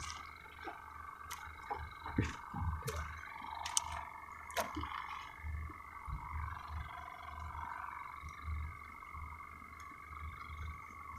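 Quiet outdoor ambience on a small fishing boat at sea: a low rumble that swells and fades, like wind on the microphone, under a faint steady hum, with a few short light knocks in the first half.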